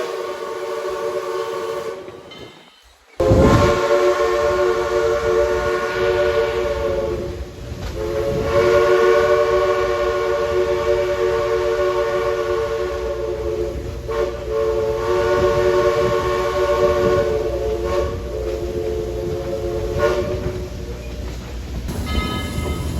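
Steam locomotive whistle sounding a chord of several notes in a series of long blasts with brief breaks, over the low rumble of the running train. The sound drops out about two seconds in, then the whistle cuts back in abruptly.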